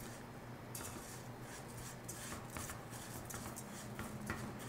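Raw rice grains being stirred and toasted in hot fat in a pan with a silicone spatula: a soft, dry, irregular rustling and scraping.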